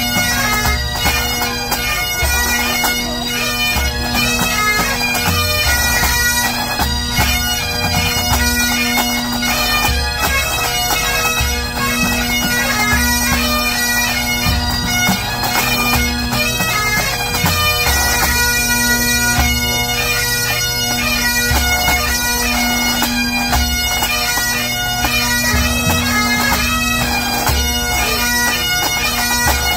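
Pipe band playing: Great Highland bagpipes sound a melody over their steady drones, with snare, tenor and bass drums beating, the bass drum thumping out the pulse.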